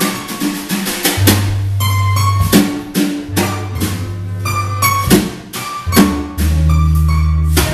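Live jazz band playing upbeat dance music: a drum kit keeping a steady beat over long held bass notes, with higher instruments on top.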